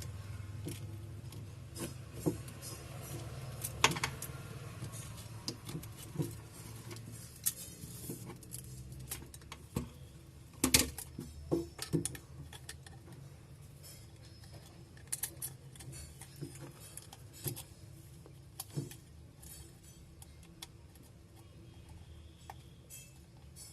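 Small hand tools clicking and tapping irregularly against a phone as its broken display assembly is pried away from the frame, over a steady low hum.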